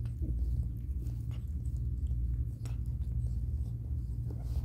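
Mother cat licking her newborn kitten: scattered short wet licking and smacking clicks, over a steady low rumble.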